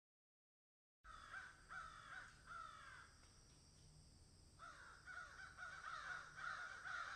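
Faint crows cawing: a run of short falling calls, starting about a second in, pausing briefly near the middle, then resuming.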